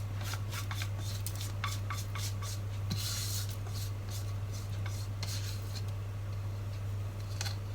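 A spoon or spatula scraping and tapping against a baking dish while spreading and smoothing a thick semolina batter, with many short clicks and a longer stretch of scraping about three seconds in.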